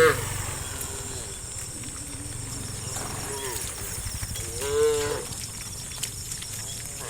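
Cows lowing in a herd: a few faint moos early on and one clear, louder moo a little past the middle, over a steady background hiss.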